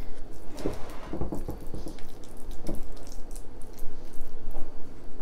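Silicone spatula spreading a wet ricotta and spinach mixture over lasagna noodles in a glass baking dish: soft squelching and scraping with small, irregular taps against the glass.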